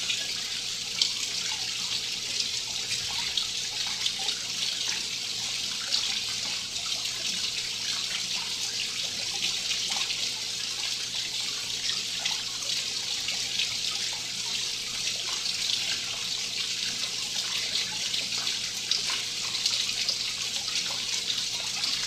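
Steady rush of running water, with small scattered ticks and splashes.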